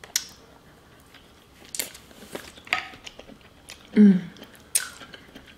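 Close-up mouth sounds of a person eating sauce-coated shrimp: scattered wet smacks and chewing clicks. About four seconds in comes a short, louder low hum, the loudest sound.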